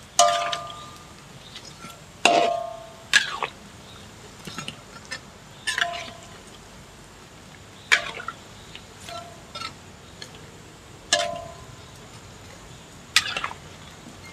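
A metal spatula clinks against a steel wok again and again, about eight times, each clink ringing briefly, as it turns cassava fritters (combro) deep-frying in oil. A steady hiss of bubbling oil runs underneath.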